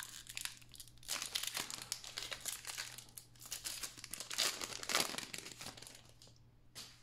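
Foil wrapper of a Panini NBA Hoops trading-card pack crinkling in the hands as it is torn open and the cards are slid out, in a run of crackly bursts that dies away about six seconds in.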